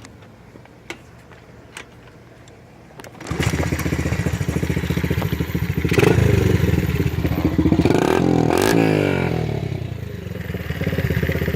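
Pit bike engine starting after a few light clicks about three seconds in, then running loud through its stripped exhaust, revved up twice with the pitch rising and falling before it settles back to a steadier run.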